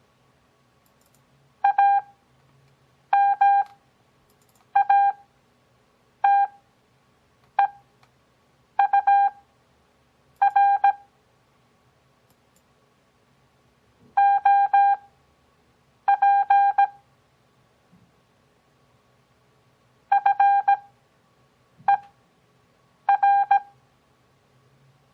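Morse code practice audio: a single steady beep tone keyed on and off in quick dits and dahs at 17 words per minute. The characters are stretched apart with Farnsworth spacing to 6 words per minute, about one character every second and a half, with longer pauses between words.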